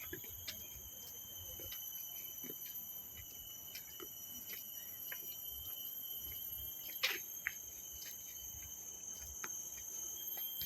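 Steady chorus of insects (crickets or cicadas) holding several constant high-pitched tones, with scattered faint clicks and one sharper click about seven seconds in.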